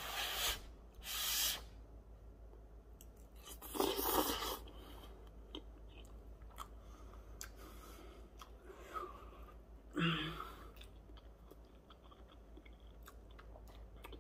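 A person slurping ramen noodles in a cheesy sauce off a fork, two short slurps at the start and another about four seconds in, then soft chewing with a short hum of approval about ten seconds in.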